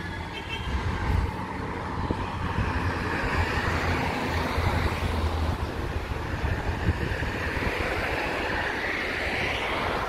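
Road traffic on a busy street: cars driving past, a steady rush of engine and tyre noise that swells and fades as vehicles go by.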